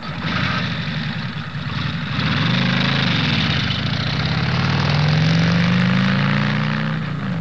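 A vehicle engine running, its pitch rising and falling, with a second engine note crossing it about three seconds in.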